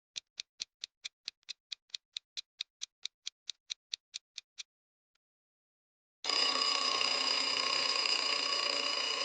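Countdown timer sound effect ticking fast and evenly, about four to five ticks a second for about four and a half seconds. After a short gap comes a steady sound effect with several held tones, lasting about three seconds, marking the end of the thinking time.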